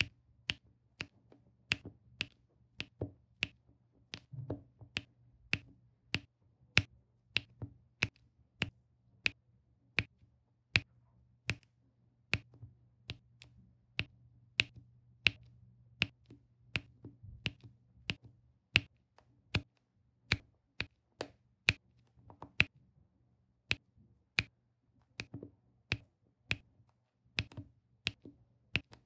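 Diamond painting pen pressing round resin drills onto the adhesive canvas, one sharp click per drill at a steady pace of about two a second.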